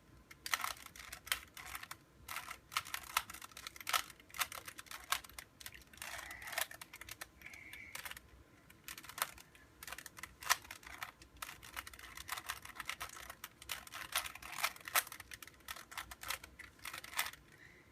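Plastic Rubik's Cube faces being turned by hand: quick, irregular clicking and clacking as the layers snap round, several turns a second with short pauses between runs.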